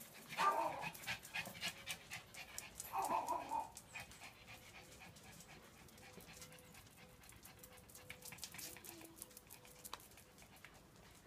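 A dog barks twice, about half a second in and again about three seconds in, then only faint scattered ticks and rustles.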